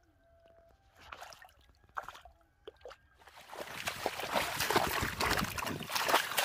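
Splashing and sloshing in shallow muddy water as someone wades through it with quick strides. It starts about three seconds in and grows loud. Before that it is quiet.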